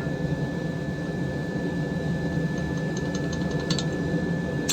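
A forge running with a steady roar and a constant thin high whine over it, while a forge-welding billet heats.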